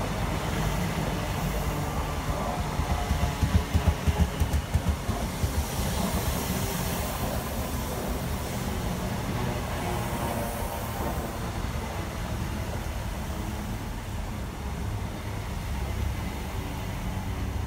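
InterCity 125 HST's Mk3 coaches rolling slowly past: a steady rumble of wheels on rail, with a run of loud wheel clatter over rail joints about three to five seconds in.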